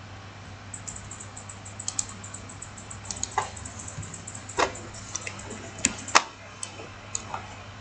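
Computer mouse clicks and keyboard keystrokes, irregular and sharp, several louder ones about halfway through, over a steady low hum.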